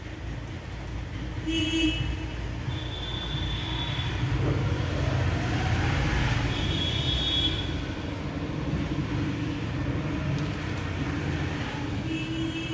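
Steady traffic rumble with vehicle horns tooting several times, short blasts about a second and a half, three and seven seconds in and again near the end.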